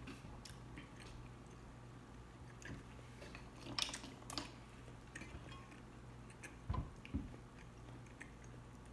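Quiet close-up chewing of a mouthful of mussel, with wet mouth clicks scattered through it. A cluster of sharper clicks comes about four seconds in, and two low knocks about seven seconds in.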